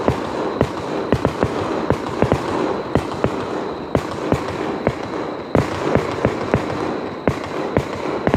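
Fireworks barrage: a rapid, irregular string of sharp bangs, about three reports a second, over a continuous background haze.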